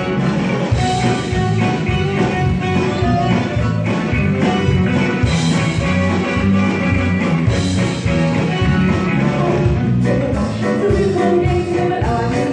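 Live band playing an upbeat rock-style song with a steady beat.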